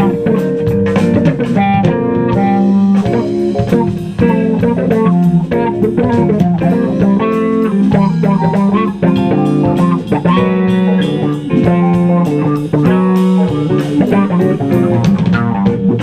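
A live jazz-funk fusion band playing an instrumental, with electric guitar, electric bass and drum kit.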